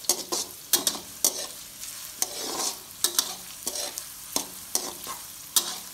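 A metal spatula scraping and clanking irregularly against a metal wok, stirring sliced onions, chillies and curry leaves frying in hot oil, with a steady sizzle underneath. The onions are being sautéed until light brown.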